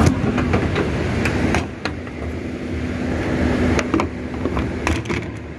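A steady low hum of workshop machinery with scattered sharp clicks and taps of hands working on a car's trunk lid and latch parts.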